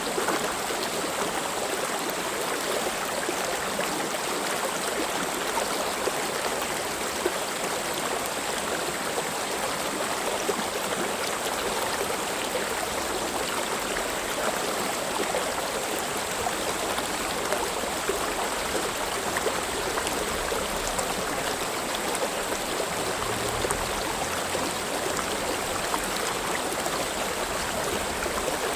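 Mountain valley stream flowing, a steady, even rush of water.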